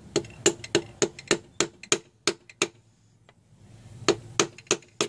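Wooden end of a hammer handle tapping on a piston crown, driving the piston and its rings through a ring compressor into the cylinder bore of a Ford Focus 2.0L SOHC engine. Quick, even taps about three a second, a pause of about a second and a half midway, then four more taps near the end.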